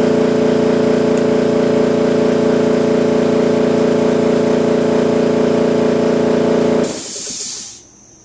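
Air compressor's electric motor humming steadily without starting, the fault of a compressor that won't start, traced to its start capacitors. About seven seconds in, the hum cuts off and a brief hiss of released air follows.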